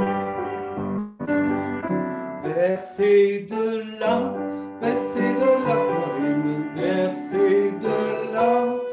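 Music: a piano accompaniment with a voice singing a slow melody over it.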